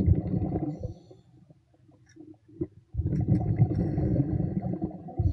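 Underwater, a scuba diver exhaling through the regulator: a low, rumbling rush of bubbles that stops about a second in, then starts again about three seconds in.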